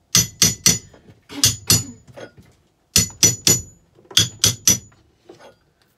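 Hammer blows driving carpet fixings, most likely gripper rod nails, in quick runs of two or three at about four blows a second, each strike with a short metallic ring.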